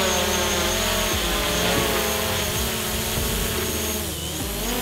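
DJI Mavic Pro quadcopter drone's propellers whining as it hovers and climbs overhead. The pitch wavers, dips about four seconds in, then rises again.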